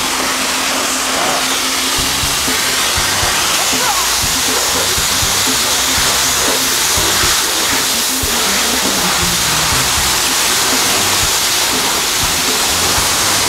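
High-pressure spray wand at a self-service car wash blasting steadily onto the car, a loud continuous hiss. Background music with a bass line runs underneath.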